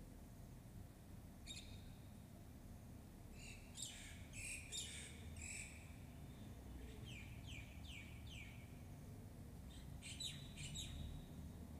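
Small birds chirping faintly in several short runs of quick chirps, some falling in pitch, over a low steady hum.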